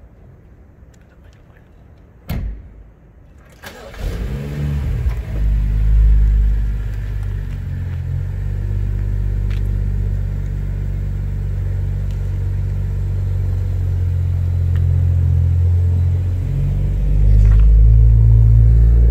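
BMW 435i's turbocharged 3.0-litre inline-six being started: a single thump about two seconds in, then the engine fires, flares up and settles into a steady idle. Near the end it grows louder as the car pulls away.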